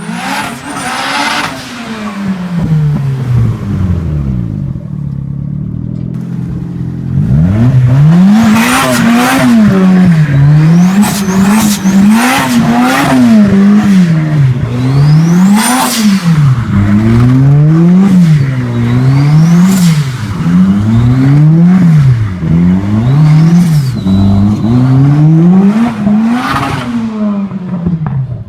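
Turbocharged car engine revved over and over in quick blips, about one every second or so, after a few seconds of lower, steadier running. Several of the rev peaks carry a rising turbo whistle and a short sharp hiss.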